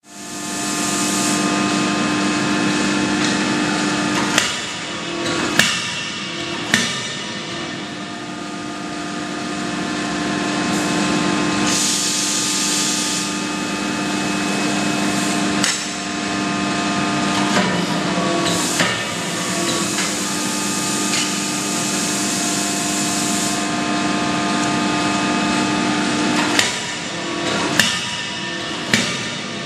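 CNC hydraulic die forging hammer striking a hot workpiece in the die: sharp blows, three in quick succession twice and a few single ones, over a steady machinery hum with several steady tones.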